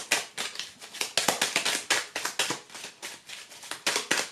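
A deck of oracle cards being shuffled by hand: a quick, steady run of papery clicks and snaps, about five a second.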